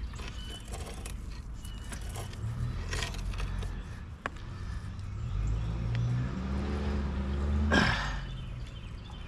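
A motor vehicle's engine speeding up, its pitch rising over a few seconds and ending in a brief loud rush about eight seconds in. A few light knocks come earlier.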